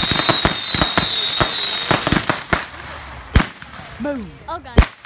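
Consumer fireworks going off. For the first two seconds there is a dense crackling shower with a high whistle falling slightly in pitch. The crackle then thins into scattered pops, and there are two sharp bangs, about three and a half and nearly five seconds in.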